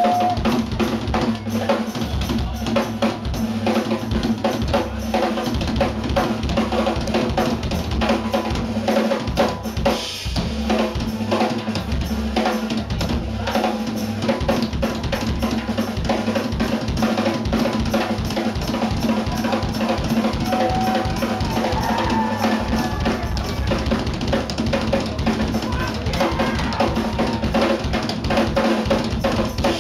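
Live drum kit solo: fast, dense, unbroken strokes on bass drum, snare and toms.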